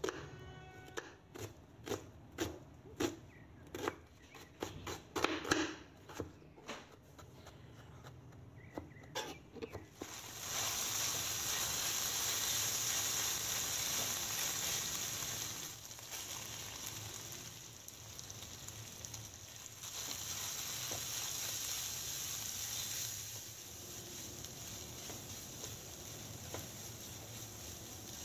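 Chef's knife chopping an onion on a plastic cutting board in a quick run of sharp cuts. About ten seconds in this gives way to chicken strips sizzling steadily in hot oil in a nonstick wok as a spatula stirs them. The sizzle drops in level twice.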